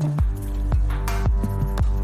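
Background music with a steady electronic beat and a deep bass line.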